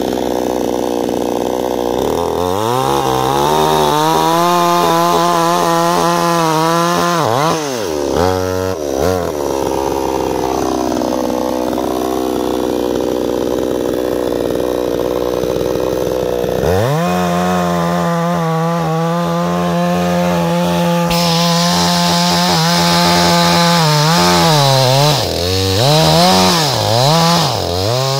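Gartner two-stroke petrol chainsaw cutting through a thick log. It revs to full throttle and holds, eases off, sags in pitch and recovers, then revs high again. Near the end the throttle is let off and opened several times in quick succession.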